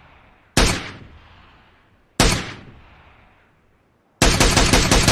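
Gunshot sound effects: two single shots, each followed by a long echoing tail, then a rapid burst of automatic fire starting about four seconds in.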